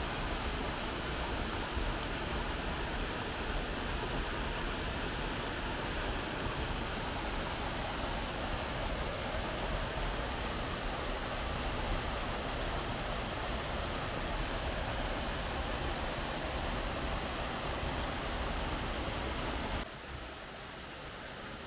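Steady rushing hiss of a tall waterfall pouring down a gorge, even and unbroken. It drops suddenly quieter near the end.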